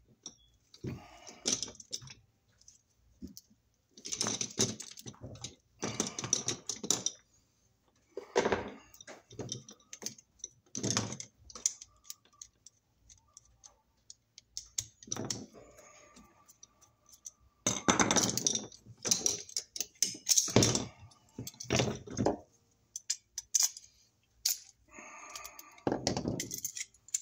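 Irregular metallic clinking and rattling, in clusters with quiet gaps, from a steel range-cord bracket plate and its metal cable connector being handled and worked with a screwdriver.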